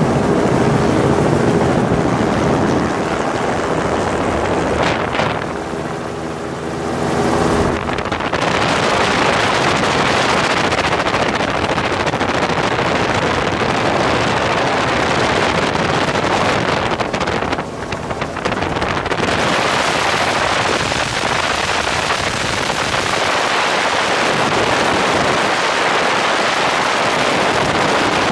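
Helicopter running on the ground and then lifting off and flying, picked up by a microphone exposed outside the open cabin. Steady engine and rotor tones give way, about eight seconds in, to a dense rush of wind over the microphone that covers most of the machine's sound.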